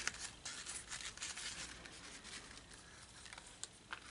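Faint rustling and crinkling of a 3-inch printed ribbon bow being handled and shaped by hand, with a couple of light taps near the end.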